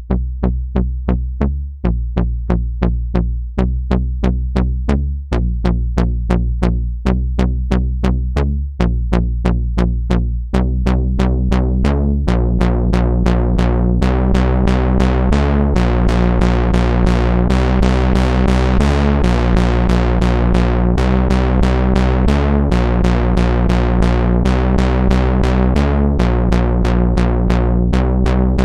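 Zephyr hybrid digital-analog synthesizer playing a sequenced electronic pattern: short repeating notes, about three a second, over a bass line that shifts pitch every few seconds. About ten seconds in, the sound turns fuller and, over the next few seconds, much brighter.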